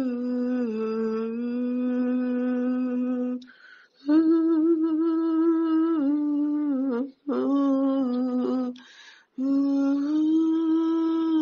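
A woman humming a slow, wordless tune in long held notes, pausing briefly for breath three times between phrases.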